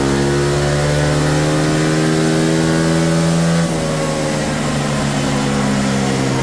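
Honda ADV160's single-cylinder scooter engine held at full throttle on a chassis dyno, its pitch climbing slowly through the top of the rev range during a power run. A little over halfway through the throttle is shut and the engine and rollers wind down, the pitch falling.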